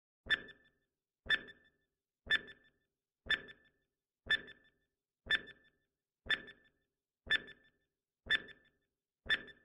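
Quiz countdown-timer sound effect: a short, sharp tick with a brief ring, once a second, ten times, counting down the seconds to answer.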